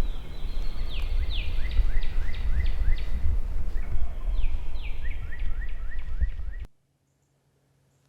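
A songbird sings a run of quick, down-slurred whistled notes, several a second, over wind rumbling on the microphone. All of it cuts off suddenly near the end.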